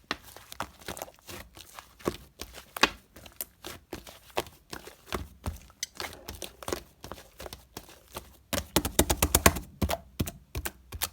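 Irregular sharp clicks and taps of small objects being handled, with a quick burst of rapid clicks about nine seconds in.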